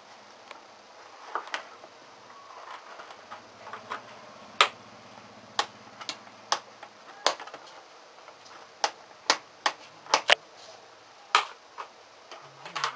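Sharp clicks of a tube table lamp's push-button switch on its plastic base, pressed repeatedly at an uneven pace, some clicks coming in quick pairs.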